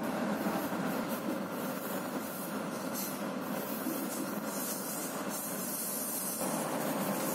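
Passenger train running along the track, heard from its rear generator van: a steady rolling rumble of wheels on rail, with a rushing hiss that comes and goes over it in the second half.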